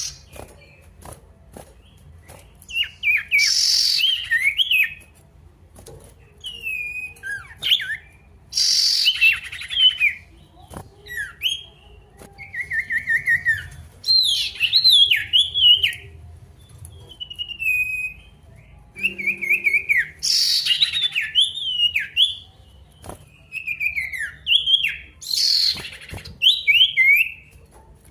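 Male sirtu songbird singing in full voice: runs of quick chirps that slide downward, with a few short harsh rasping bursts between them. This is a challenge song to a rival.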